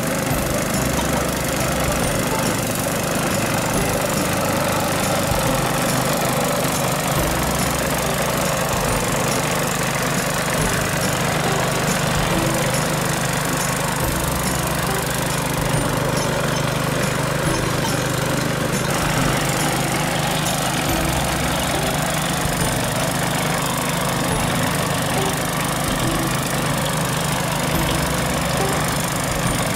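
Walk-behind sickle-bar grass mower with a 7 HP petrol engine running steadily as it cuts through tall grass.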